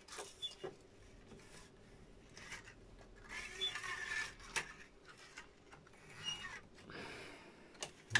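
Quiet handling of a reel-to-reel tape recorder: a small tape reel fitted on the spindle and tape threaded by hand, with soft rustles and a few light clicks. A sharper click of a transport key comes near the end.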